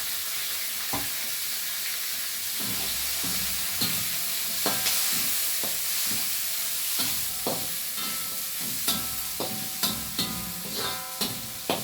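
Chopped onions, ginger and garlic sizzling in hot ghee while a spoon stirs and knocks against the pan. The knocks grow more frequent in the second half.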